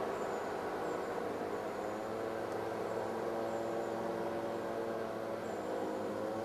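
SNCF BB 7200-class electric locomotive BB 7381 moving slowly, giving a steady electrical hum with several whining tones from its traction equipment and cooling blowers.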